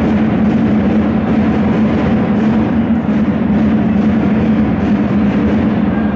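Loud, steady din of an indoor football hall during play, with a constant low hum under it and faint scattered clicks.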